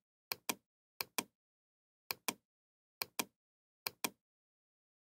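Computer mouse clicking: five pairs of sharp clicks, each pair a fraction of a second apart and the pairs about a second apart.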